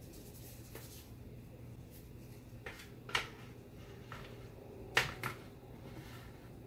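A few light clicks and knocks as the bullpup chassis is handled and set over the Hi-Point carbine's barreled action, about three and five seconds in, the one near five seconds the loudest, over a faint steady hum.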